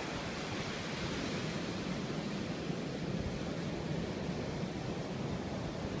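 Ocean surf washing onto a sandy beach, a steady rush of noise, with wind rumbling on the microphone.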